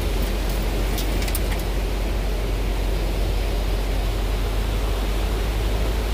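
Steady wind buffeting the microphone over the wash of breaking surf, with a few light clicks in the first second or so.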